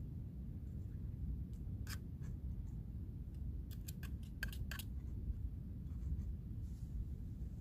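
A metal fork scraping and clinking in a small camping frying pan as food is stirred. There is a sharp click about two seconds in and a quick run of clinks between about four and five seconds, over a steady low rumble.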